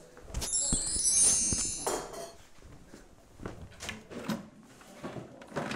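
A high, twinkling chime sound effect sparkles for just over a second, starting about half a second in. Scattered light knocks and bumps of furniture being handled run through the rest, the sharpest near the end.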